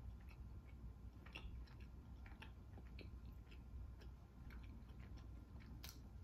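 Faint chewing of a soft milk bread: scattered small mouth clicks and smacks over a low hum, with one sharper click near the end.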